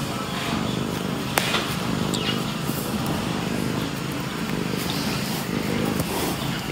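Tabby kitten purring close to the microphone, a steady low rumble. A single sharp click about a second and a half in.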